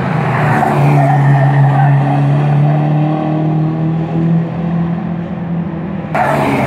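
Race car engines running at steady revs as cars power through a circuit corner, one held engine note over tyre and road noise. A louder rush of noise comes in suddenly about six seconds in.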